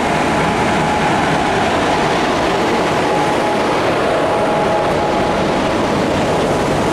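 WAP-4 electric locomotive passing close by on the track, followed by its first passenger coaches: a loud, steady rush of wheels on rail with a steady high whine running through it.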